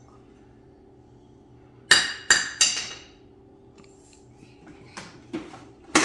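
Three sharp, ringing clinks in quick succession about two seconds in, as of a hard object struck, followed later by a couple of faint knocks.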